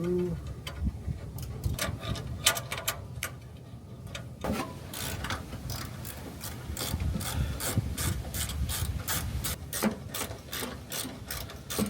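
Hand ratchet wrench clicking in runs of quick strokes while tightening the mounting bolts of an exhaust flap actuator.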